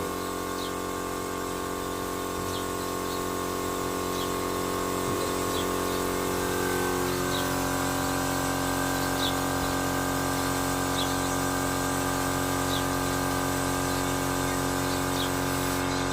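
Motor of a spray-painting machine running with a steady hum that shifts in pitch about seven seconds in. Short bird chirps come every second or two.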